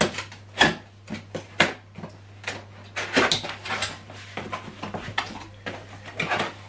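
Cardboard box being handled and opened: a string of taps and knocks of hands on the cardboard with brief scraping rustles, then the top flap pulled open near the end.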